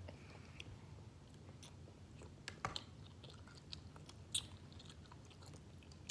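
Children eating jjajangmyeon (Korean black bean noodles): faint slurping and chewing, with scattered short wet smacks and clicks, the sharpest about two and a half and four and a half seconds in.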